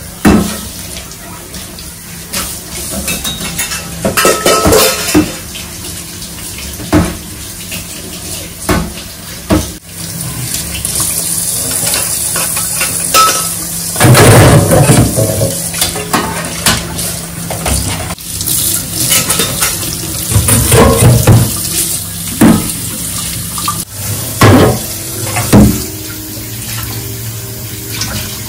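Dishwashing at a stainless steel sink: pots, pans and utensils clanking against each other and the sink, with water running from the tap for much of it. The clatter comes in irregular bursts, some of them loud.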